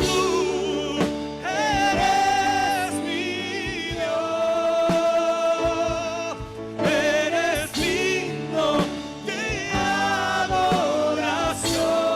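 Christian worship song: a voice sings long held notes with vibrato over steady sustained musical accompaniment.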